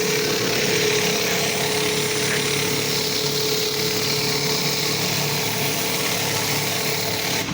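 Gas pressure washer running, its high-pressure water spray giving a steady hiss over a steady engine drone. The sound stops abruptly at the very end.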